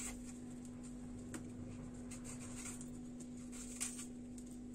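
Faint kitchen handling noises: a few small clicks and knocks, one at the start, one about a second and a half in and one near the end, over a steady low hum.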